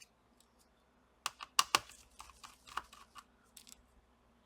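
Small sharp clicks and taps of a precision screwdriver and tiny screws being worked out of a laptop's motherboard, irregular, with a quick group of three louder clicks a little over a second in.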